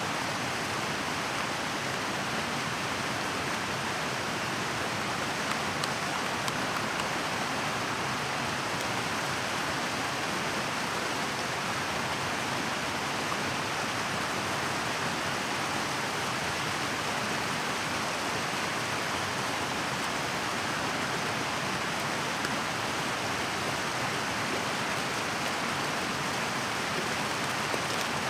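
Mountain stream rushing steadily.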